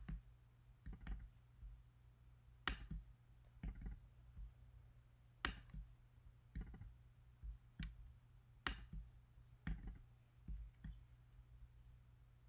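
Faint clicks of a computer mouse: a sharper click about every three seconds with softer ones between, over a low steady hum.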